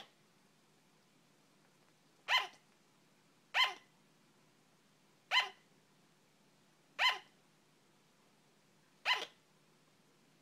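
Sugar glider barking: five short, hiccup-like yaps, spaced one to two seconds apart, each dropping in pitch at its tail.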